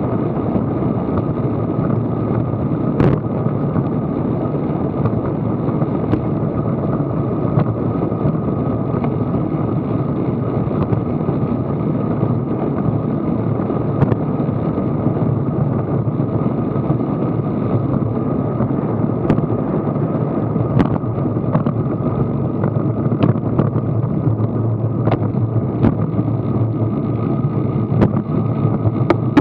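Steady wind and road rumble on a Garmin VIRB action camera's microphone while moving at about 18 mph, with occasional sharp ticks from bumps or rattles.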